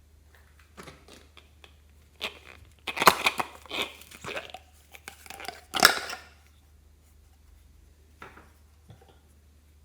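Slime being squeezed, stretched and folded by hand, in irregular bursts, the loudest about three and six seconds in.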